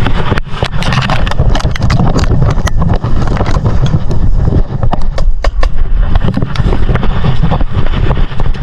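Handling noise on a body-worn camera while its wearer moves low through grass and dry leaf litter: a steady low rumble with many irregular knocks, clicks and rustles.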